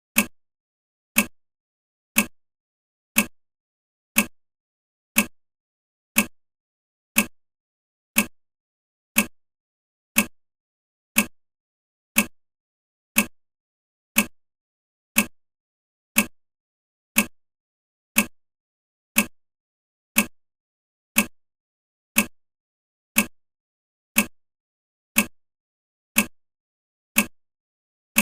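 Countdown timer ticking: one short, sharp tick every second, each dying away quickly.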